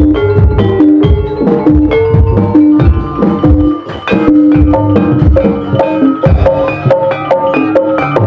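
Gamelan music accompanying an ebeg horse dance: struck keyed percussion playing a running melody over regular hand-drum strokes, with a brief lull just before the middle.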